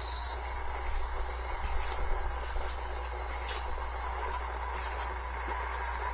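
A steady chorus of insects, a continuous high-pitched shrill trill with no breaks.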